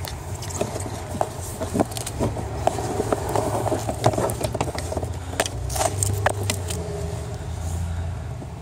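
Wire being pulled by hand through a rubber firewall grommet and rubbing against the truck's wiring harness: irregular scraping, rustling and light clicks over a steady low hum.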